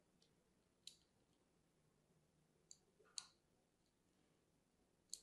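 Small craft knife scoring lines into a bar of soap: four faint, crisp clicks spread over about five seconds, the loudest a little past three seconds in.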